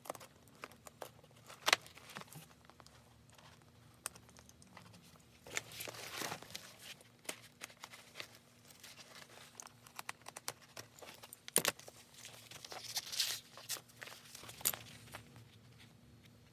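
Hands and tools working on a leather backpack: scattered sharp clicks and taps, with a few brief rustling, scraping passages.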